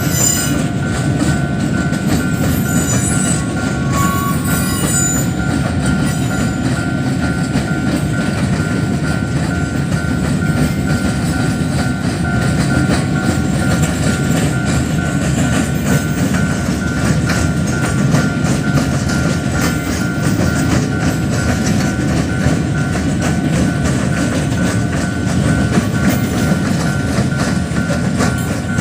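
Freight train rolling through a level crossing: a steady rumble of wagons with wheels clicking over the rails, and a steady high tone above it.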